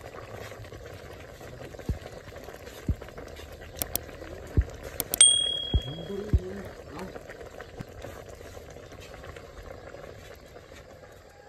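A pot of curry boiling hard, with a steady bubbling. A few dull thumps come through it, and about four to five seconds in there are sharp clicks and a short ringing bell ding, the loudest moment.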